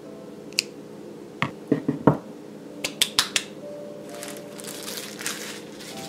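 Kitchen scissors snipping green onion stalks: a run of about eight short, sharp snips in the first half, followed by soft rustling.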